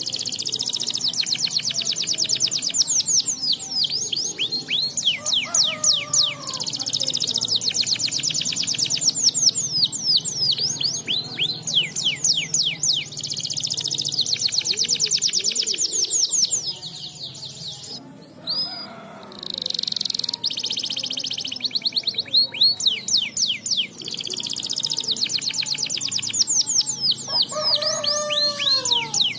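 Domestic canary singing a long, fast song of rapid high trills, made of quick repeated notes that sweep down in pitch. About two-thirds through it breaks off briefly, then goes on with a steady rolling trill. Fainter, lower falling calls come in twice, early and near the end.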